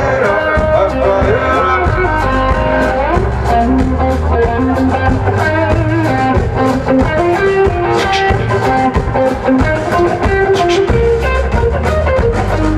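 Mangue beat band playing live: bass guitar, drum kit and percussion drums struck with sticks, in an instrumental passage with a steady beat.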